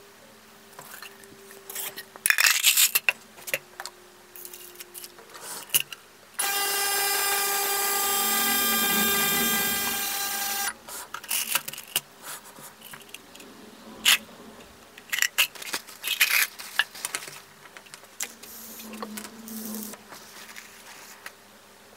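Small steel screws clinking and rattling as they are handled, in several bursts. Between them, about six seconds in, a GT Sonic ultrasonic cleaner runs for about four seconds: a steady buzz with many overtones that starts and stops abruptly.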